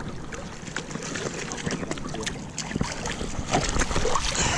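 River water splashing and sloshing close to the microphone, with many small crackling drops; it grows louder from about three and a half seconds in.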